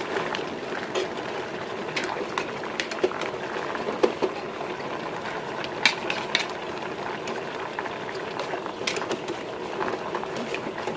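Water boiling in a stainless steel pot with greens blanching in it, a steady bubbling, with scattered sharp clicks of a metal spoon against the pot as the greens are stirred.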